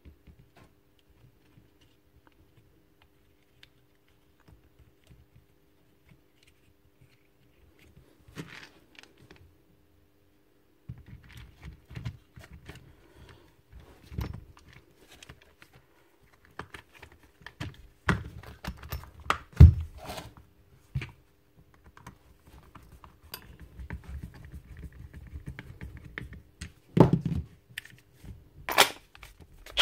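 Plastic clicks, taps and knocks as a Bosch GSB 18V-55 cordless drill's housing halves are fitted back together and screwed up by hand, with a few louder thunks as the tool is handled and set down. Near the end comes a sharp click as the battery pack goes on.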